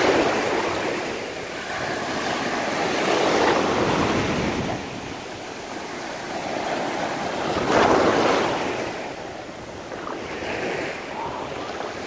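Mediterranean surf: waves breaking and washing up onto a sandy beach in repeated swells, with the loudest break about eight seconds in.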